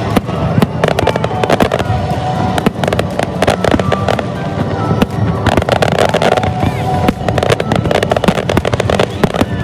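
Fireworks bursting overhead: a dense, continuous run of bangs and crackles from exploding aerial shells.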